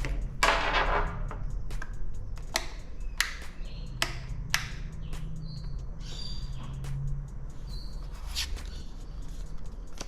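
Unpacking and handling noises: a run of sharp clicks and knocks with a short rustle about half a second in, and a few brief high chirps. The compressor is not running.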